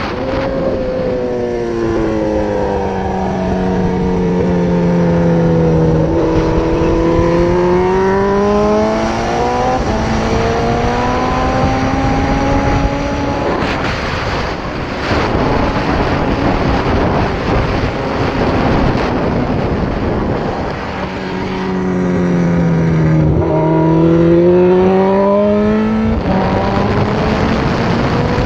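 Suzuki GSX-R1000 K6 inline-four sport-bike engine, heard from the rider's helmet at speed on track. The revs sweep down and up in long runs, with brief breaks at gearchanges. Through the middle the engine is largely buried under heavy wind rush, then it winds down and climbs again near the end.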